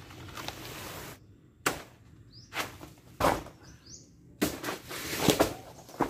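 A bird gives two short rising chirps, about two and four seconds in, among a run of loud, short bursts of noise.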